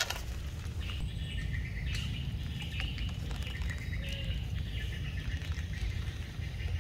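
Small birds chirping over and over, with a steady low rumble underneath.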